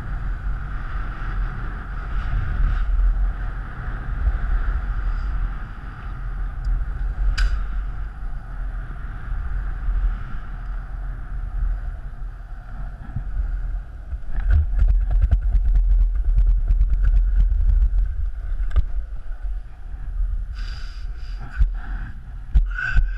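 Penny board wheels rolling fast down asphalt, with heavy wind rushing over the microphone. A run of clicks and knocks comes about two-thirds of the way through, and a few sharper knocks near the end.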